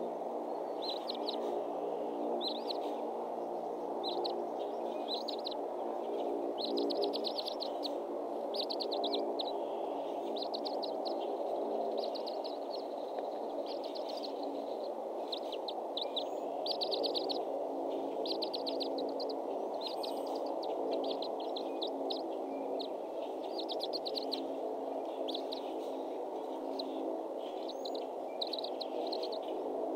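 Small songbirds singing around the nest, short bursts of rapid high trills repeated again and again, over a steady low hum.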